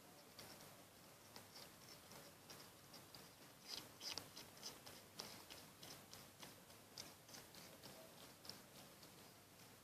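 Faint, quick clicks, a few a second, with a louder cluster about four seconds in: a Tasmanian pademelon nibbling and chewing vegetation.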